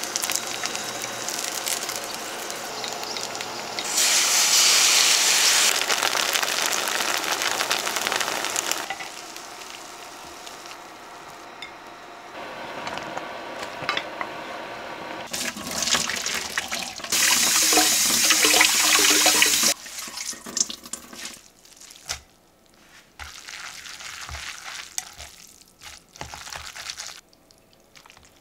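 Dumplings frying in a skillet, sizzling, with two loud stretches of hissing, about four seconds in and again past the middle. The last seconds hold quieter kitchen handling sounds and clinks.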